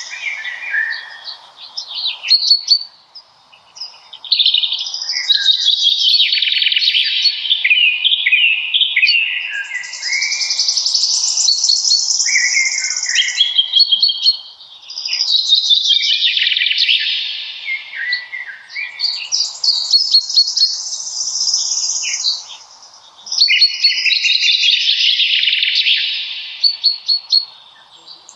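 Songbirds singing: long, fast, twittering and warbling phrases of a few seconds each, one after another with short pauses between them.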